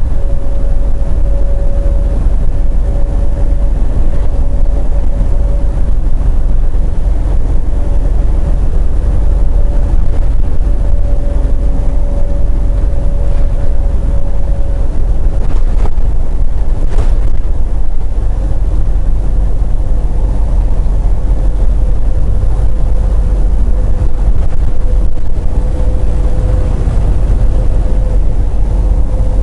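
Steady drone of a semi truck's engine and road noise heard from inside the cab at highway speed: a strong low rumble with a constant hum above it and a faint tick about halfway through.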